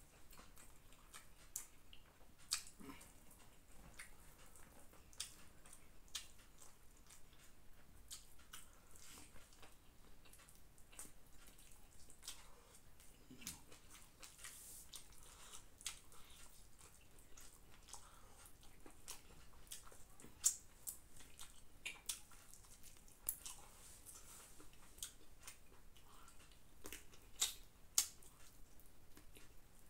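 A man eating chicken biryani by hand: quiet chewing with many sharp, wet mouth clicks and smacks at irregular intervals.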